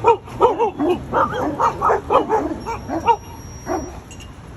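A dog giving a quick run of short, high yips and whines, about three or four a second, which stop a little before the end.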